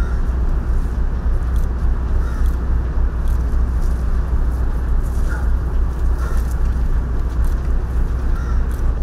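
Steady low outdoor rumble with an even noisy hiss over it, and a few faint short chirps now and then.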